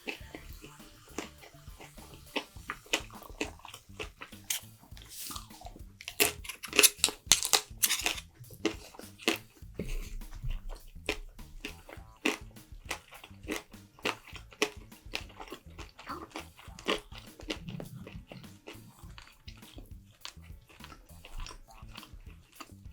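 Close-miked eating sounds: a person chewing and biting food, with many short wet clicks and smacks, most dense and loudest about six to eight seconds in.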